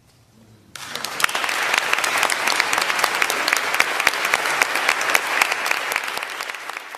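Audience applauding: dense clapping breaks out suddenly under a second in and holds steady.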